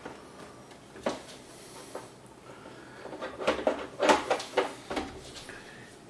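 Plastic parts of a SMEG ECF01 coffee maker knocking and clicking as the top section is pressed and worked onto the housing, its small hooks being pushed toward their slots. One click about a second in, then a quick run of knocks and clicks around the middle of the clip.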